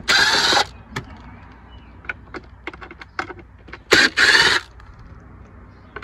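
Milwaukee cordless driver with a T10 bit spinning out the screws on the back of a truck instrument cluster: two short bursts, one at the start and one about four seconds in. Light clicks from the plastic housing and screws come in between.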